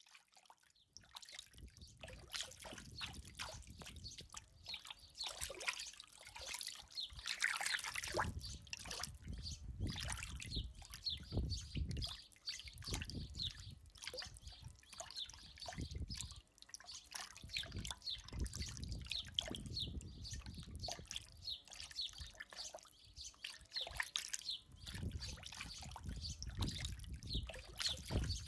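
Running water trickling and bubbling, with many small irregular splashes; it fades in over the first second or so and then runs on unevenly.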